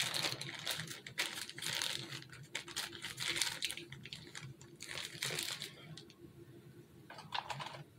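Plastic piping bag crinkling as it is handled, squeezed and twisted, in bursts for most of the time and once more briefly near the end.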